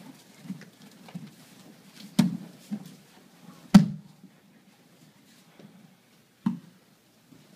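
Bodies thudding and slapping onto padded training mats as aikido students are thrown and take breakfalls: three sharp thuds, the second the loudest, with softer bumps and shuffles between.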